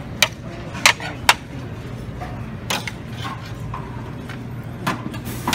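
Metal serving tongs clinking against a steam-table pan and a ceramic plate while serving fish: about six sharp clicks, three close together in the first second and a half and two more near the end. A steady low hum of buffet background noise runs underneath.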